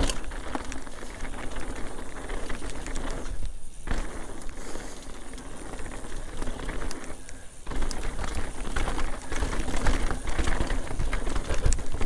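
Mountain bike descending a dirt singletrack: tyres rolling and crunching over dirt with the bike rattling and clicking, and wind rumbling on the microphone. The noise drops off briefly twice, about a third and two-thirds of the way through.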